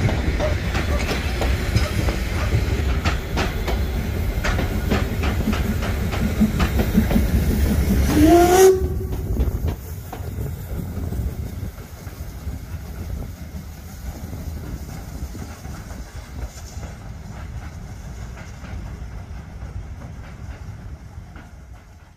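Harz narrow-gauge steam trains in a station: a steady low rumble with clanks and knocks and steam hissing. About eight seconds in, a short rising whistle tone is cut off abruptly. After that a quieter steam locomotive stands hissing at a platform, fading out at the end.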